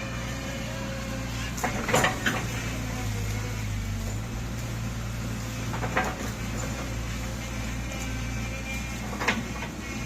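Excavator engine running steadily at a low hum, with a few sharp clanks or knocks about two, six and nine seconds in.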